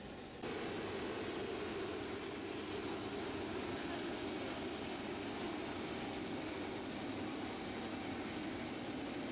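Steady jet aircraft noise on an airport apron: a constant rush with a thin high whine, jumping louder about half a second in.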